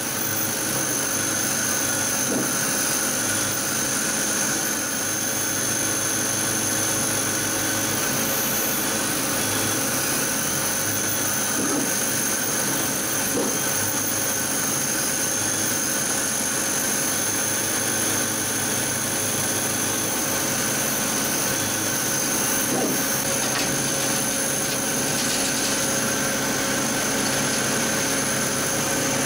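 Laser cutter running while it cuts through thin metal plate: a steady whooshing hum from its fans and air assist, with a few high steady whines and occasional faint ticks.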